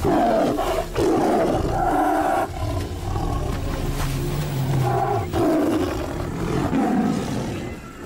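Two Bengal tigers fighting: a run of loud roars and snarls with only brief breaks.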